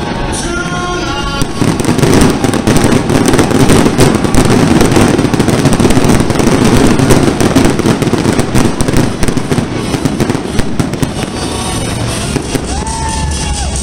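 Dense fireworks barrage: many aerial shells bursting in rapid succession with bangs and crackle, building up about a second and a half in and thinning out near the end.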